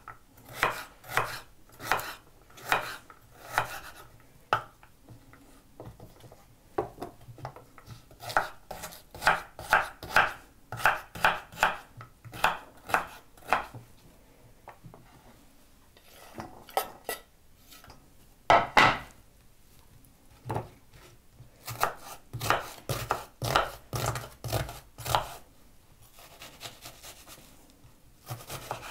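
Kitchen knife chopping carrots on a wooden cutting board: sharp knocks of the blade on the board, about two a second, coming in runs with short pauses between them, one knock louder than the rest about two-thirds of the way through.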